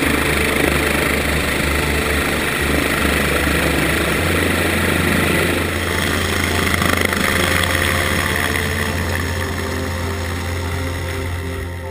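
Helicopter turbine and main rotor running loud and close, the rotor throbbing heavily for the first few seconds and then settling into a steadier drone, easing off near the end as the helicopter lifts away.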